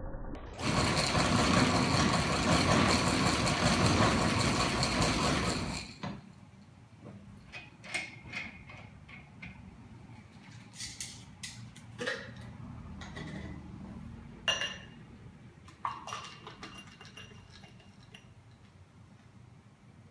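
Hand-cranked steampunk cocktail shaker being cranked, the mechanism and the shaker's contents rattling loud and fast for about five seconds before stopping sharply. Then scattered short clinks and knocks of metal and glassware.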